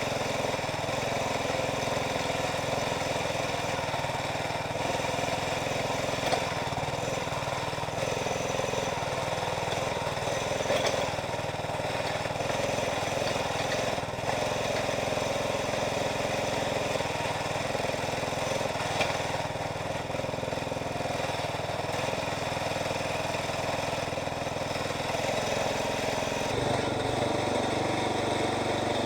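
Small gasoline engine of a Jansen MB 300 towable backhoe running steadily, driving the hydraulics as it digs. A little before the end the engine note changes and gets slightly louder.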